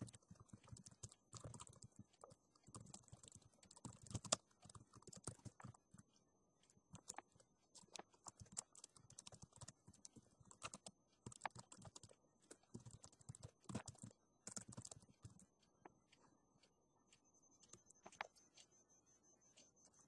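Faint typing on a computer keyboard: quick, irregular runs of keystroke clicks with short pauses, thinning out in the last few seconds.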